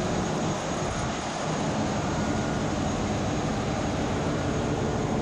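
Steady drone of a ship's engine room with the other diesel machinery running: a low hum under a loud, even hiss.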